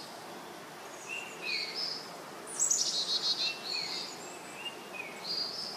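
Birds singing: short, high whistled phrases about every half second to a second, with a fast trill about two and a half seconds in, over a faint steady hiss.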